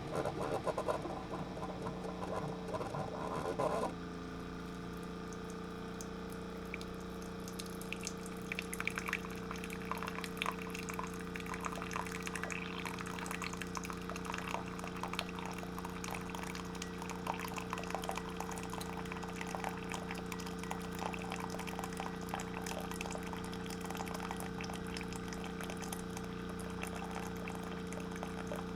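Water trickling and dripping over a steady machine hum. A different, busier sound fills the first four seconds and cuts off suddenly.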